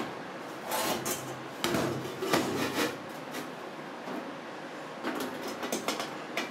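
A welded sheet-steel stove shell being shifted and turned over on a metal workbench: scraping and rubbing of metal on metal, then a few light knocks as steel rods are set against it near the end.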